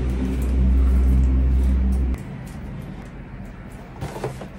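A low, steady rumble that cuts off abruptly about two seconds in, leaving a fainter steady hum with a few light clicks.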